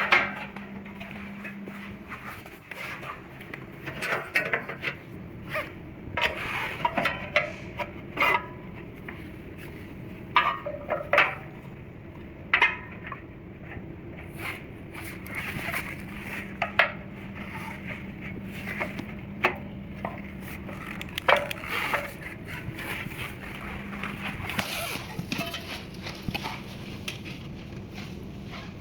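Irregular clicks, knocks and scrapes of metal parts and tools being handled while a metal hose reel box is put back together, over a faint steady hum.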